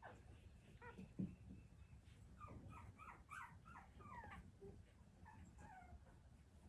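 Newborn Pomsky puppies giving a quick run of faint, high squeaks and whimpers while nursing, then a few more. A single brief knock comes about a second in.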